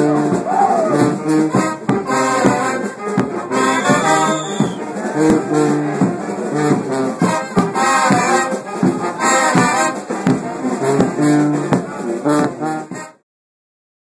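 Frevo played on brass, trombones and trumpets, with a driving beat. It cuts off suddenly about a second before the end.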